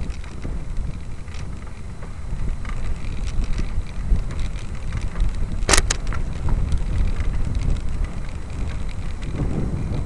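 Wind buffeting the microphone as the camera moves along, a steady low rushing noise. A sharp double click sounds about six seconds in.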